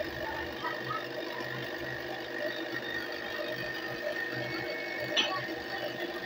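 Panasonic juicer-blender's motor running steadily, grinding a thick green chutney of mint, coriander, garlic and green chillies in its glass jar. A single sharp click about five seconds in.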